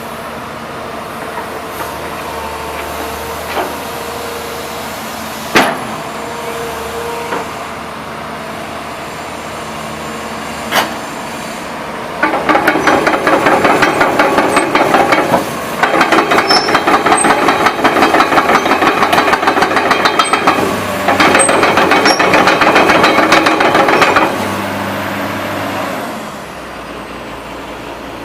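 Komatsu PC200-8 excavator's diesel engine running steadily, with a few sharp knocks. About twelve seconds in comes a loud, fast mechanical clatter of the machine working, in three long stretches with short breaks between them. It then drops back to the engine alone.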